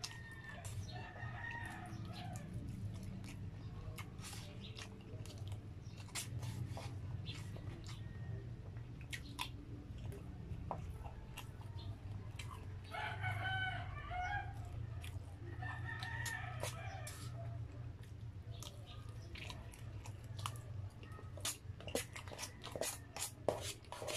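Close-up chewing and mouth sounds of someone eating, with clicks from a plastic spoon and fork in a paperboard meal box, over a steady low hum. A rooster crows twice in the background, about halfway through, each crow lasting a second or two.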